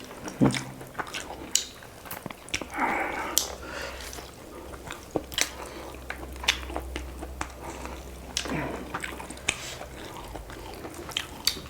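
Close-miked eating of chicken curry with rice: chewing with many scattered sharp mouth clicks and smacks, and a brief louder rustle about three seconds in.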